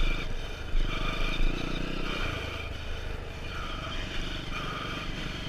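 Motocross bike engine running at low throttle as the bike rolls slowly off the dirt track, with a couple of low thumps about a second in.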